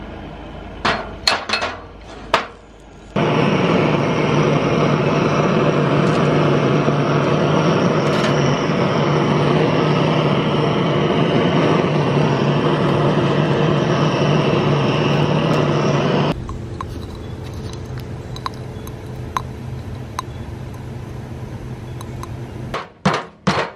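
Handheld gas torch burning with a steady hiss and a low hum while it heats the cylinder head of an air-compressor-turned-Stirling-engine; it starts suddenly about three seconds in and cuts off suddenly some thirteen seconds later. A few sharp metallic clinks come before it and near the end.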